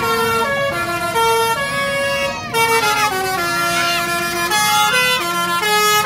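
Indonesian bus 'basuri' musical horn (telolet) playing a tune: held notes that step up and down in pitch, one after another, in answer to the children's request for a horn.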